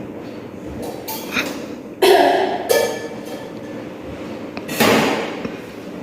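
A woman coughing forcefully twice, about two seconds in and again near the five-second mark, as the deliberate cough that ends an effective-cough breathing exercise after deep breaths.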